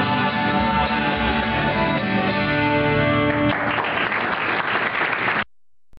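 A live folk band's acoustic guitar rings out on the song's final chord. Audience applause breaks out about three and a half seconds in and is cut off abruptly near the end.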